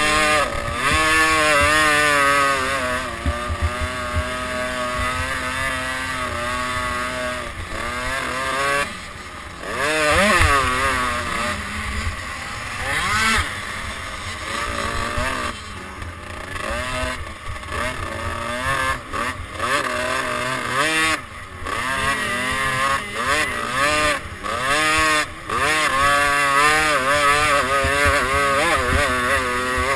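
Motocross dirt bike engine revving up and down over and over as it is ridden hard round the track, heard close up from the bike itself with wind rush.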